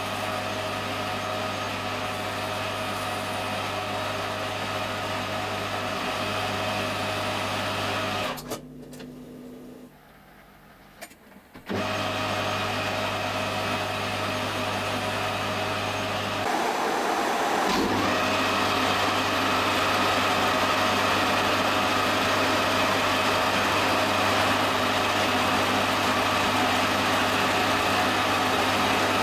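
Metal lathe running steadily while turning a small brass part, a motor and gear hum with a whine. About a third of the way in it drops to a low hum for roughly three seconds, then picks up again, and a little past halfway it runs somewhat louder and hissier to the end.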